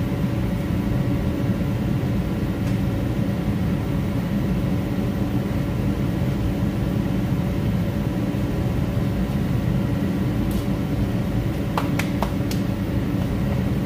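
Steady machine hum over a low rumble, a motor or engine running at constant speed, with a few light clicks near the end.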